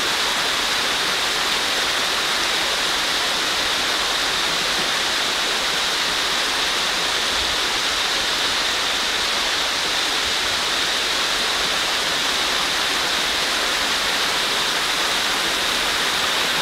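A tall tiered waterfall spilling down stepped rock ledges: a steady, even rush of falling water with no breaks or changes.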